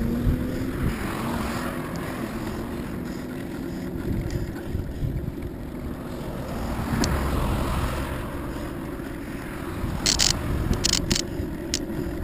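Bicycle riding along a paved trail, heard from a bike-mounted camera: steady wind on the microphone and low tyre-on-pavement rumble, with road traffic swelling past twice. About ten seconds in, a run of sharp rattling clicks starts.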